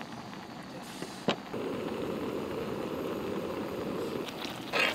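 Cream and basil pesto sauce heating in a griddle pan on a camp gas stove: a sharp click about a second in, then a steady rushing, crackling noise for about three seconds, with a few short knocks near the end.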